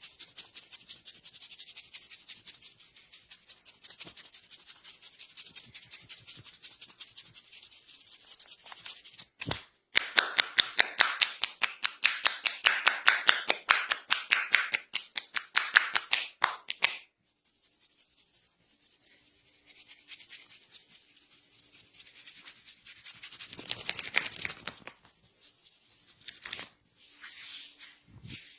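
Hands rubbing and scratching briskly through hair and over a scalp in fast, even strokes. The strokes grow much louder about a third of the way in, stop suddenly a little past the middle, then give way to slower, softer rubbing.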